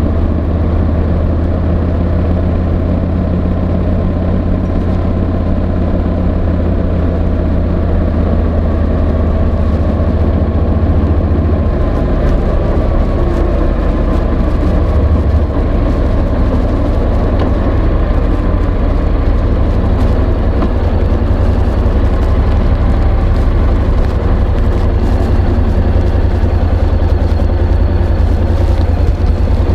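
Honda NC750X's 745 cc parallel-twin engine running steadily, heavy in the low rumble, with the pitch of that rumble shifting about twelve seconds in. Throughout, the external microphone scrapes against the slippery fabric of a jacket pocket.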